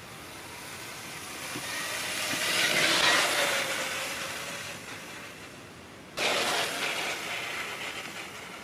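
Traxxas TRX-4 Bronco RC crawler's electric motor and drivetrain whining, with tyres rolling over dry leaves, as the truck passes close by. The sound is loudest about three seconds in, then fades. It comes back suddenly about six seconds in and fades again as the truck drives on.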